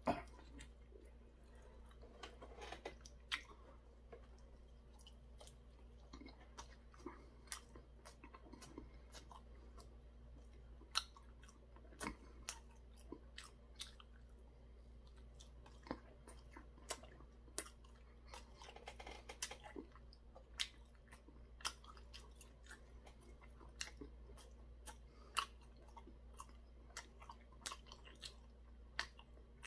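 A person chewing and biting battered fried food, with faint, irregular crunches and mouth clicks.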